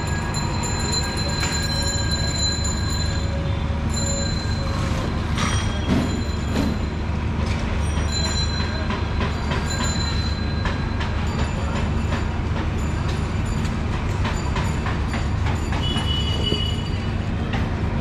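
Steady rumble of street traffic with a few faint, thin high whining tones that come and go, and occasional light clicks.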